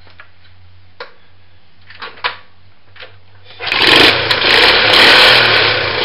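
A few light clicks, then about three and a half seconds in a Honda CT110's small single-cylinder four-stroke engine starts and runs loudly.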